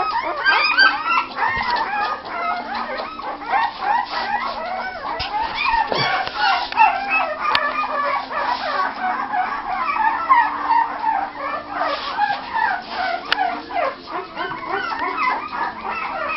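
A litter of young Kerry Blue Terrier puppies whining and yelping together, many short high cries overlapping without a break.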